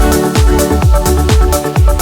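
Electronic dance music with a steady kick drum about twice a second under held synth chords and hi-hats.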